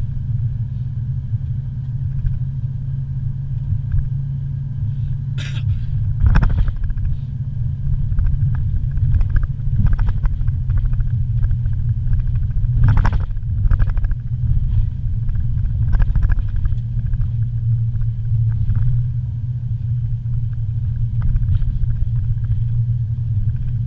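Car driving slowly, heard from inside the cabin: a steady low rumble of engine and road noise, with a few brief knocks and rattles.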